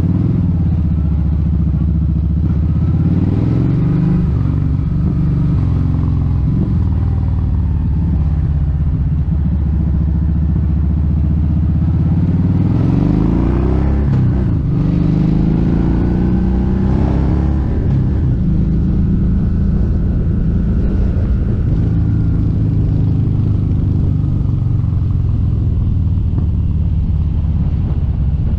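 Kawasaki Vulcan 1700 Vaquero's V-twin engine running steadily while riding on a highway, its pitch rising and falling a few times.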